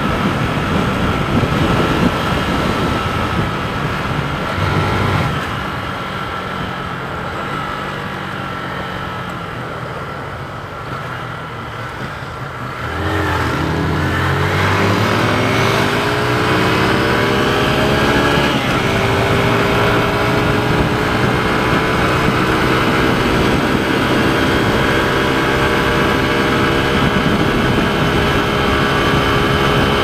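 Motorcycle engine and wind rush while riding, heard from the rider's own bike. The engine eases off for several seconds. About thirteen seconds in it accelerates, its pitch rising, then it holds steady at a higher speed.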